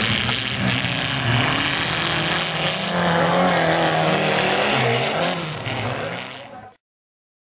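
Autocross race car engines revving up and down over a dirt track, with the pitch rising and falling, before the sound cuts off abruptly near the end.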